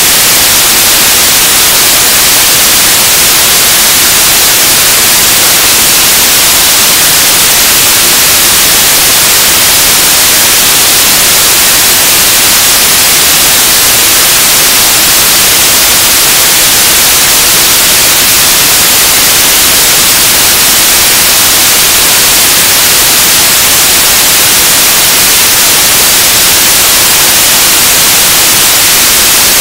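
Loud, steady hiss of static from an analog FPV video receiver that has lost the plane's signal, strongest in the high end and unchanging throughout.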